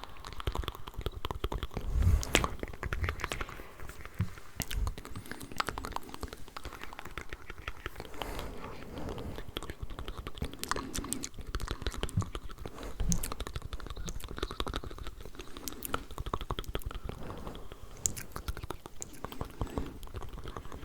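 Close-miked ASMR mouth sounds: layered, rapid wet clicks and smacks of lips and tongue, with a couple of low thumps about two seconds in and again about two-thirds through.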